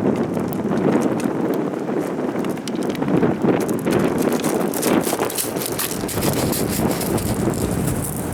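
Strong wind buffeting the microphone in a rainstorm, with a dense run of sharp taps from about four seconds in.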